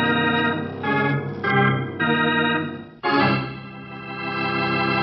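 Organ music: a run of sustained chords changing about once a second, then a long held chord from about three seconds in.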